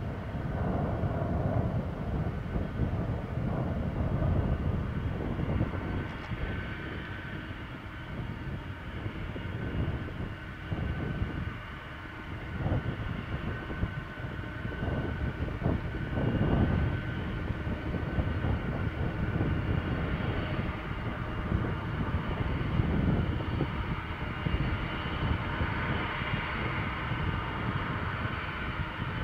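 Boeing 747's four jet engines running at taxi power: a low rumble that swells and fades, with a faint steady high whine over it.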